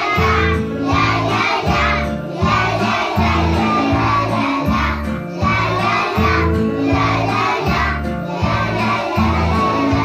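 A group of young children singing together over backing music with a steady beat.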